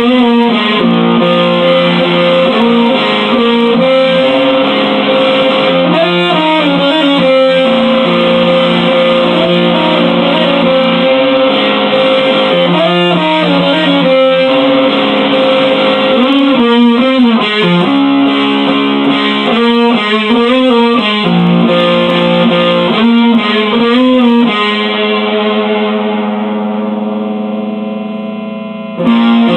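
Electric guitar played solo in a wordless instrumental: held, ringing chords with picked note changes. About 25 seconds in, a chord is left to ring and fade for a few seconds before the next chord is struck.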